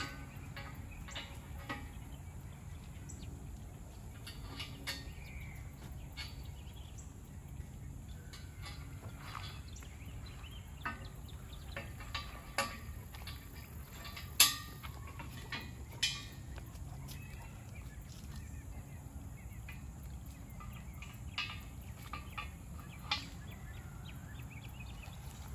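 Scattered clanks and knocks of steel parts as a 3-point hitch pallet fork frame is fitted onto a compact tractor's hitch, with one sharper knock about halfway through, over a steady low hum.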